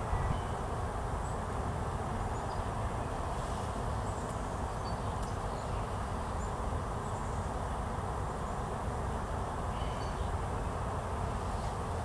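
Outdoor ambience: a steady low rumble with a few faint, short high chirps scattered through it.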